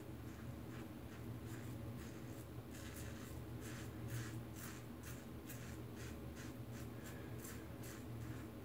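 Rockwell 6C safety razor on plate 4, with a new Rockwell blade, scraping stubble through shaving lather on the neck: a quick series of short rasping strokes, about two to three a second, over a faint steady low hum.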